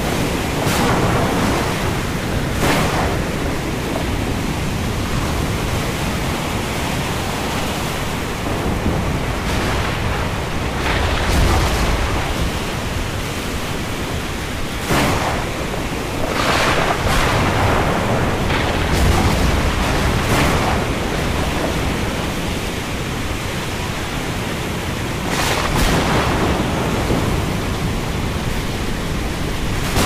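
Thunderstorm: a steady rushing of wind and rain, broken by about a dozen sharp thunder cracks. Deep rolling rumbles swell up twice, around a third and two thirds of the way through.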